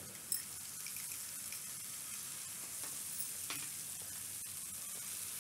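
Mustard paste and garlic-chilli paste frying in hot mustard oil in a kadhai: a quiet, steady sizzle, with a couple of faint clicks.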